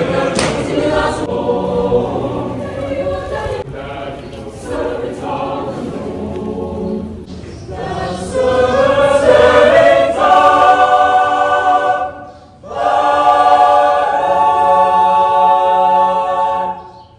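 A choir of young voices singing unaccompanied, holding full sustained chords under a vaulted stone arcade. The singing breaks off briefly about twelve seconds in, then resumes and stops near the end.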